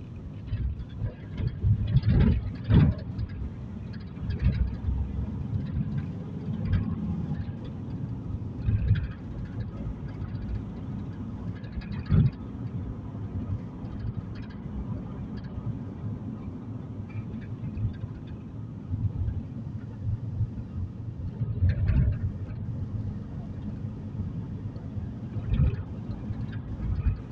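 Steady low rumble of road and engine noise heard from inside a moving car's cabin, with occasional short thumps, a few of them louder, from bumps in the road.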